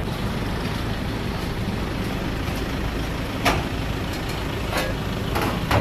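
Steady rumble and hiss of busy street-stall background noise, with a few sharp clicks about three and a half seconds in and again near the end.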